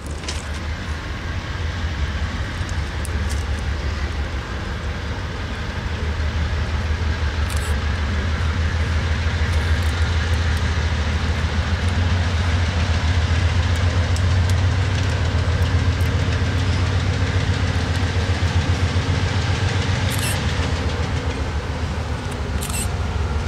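Diesel locomotives approaching under power at the head of a freight train: a deep, steady engine rumble that builds as they draw nearer, with a few brief sharp ticks.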